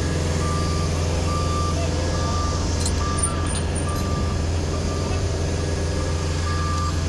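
Ground vehicle's reversing alarm beeping steadily, a little more than once a second, over the steady low drone of ramp engines.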